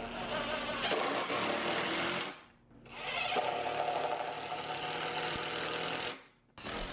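Cordless DeWalt impact driver hammering 3-inch deck screws into the corner of a wooden frame, in two runs, one screw each, with a short pause between them.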